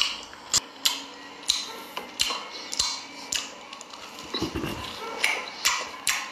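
A person eating close to the microphone: chewing with sharp, wet mouth smacks and clicks every half second or so, and a short low hum from the throat about four and a half seconds in.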